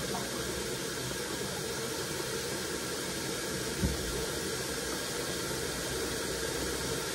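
Steady hiss of tap water running into a bathroom sink, with a single soft bump about four seconds in.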